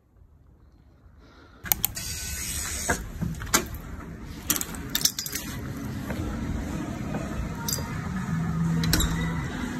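Faint quiet ambience, then about two seconds in a sudden steady rushing noise with scattered sharp clicks and jangles: someone walking in through a glass gym door with a handheld phone, its handling noise and small metal clinks close to the microphone.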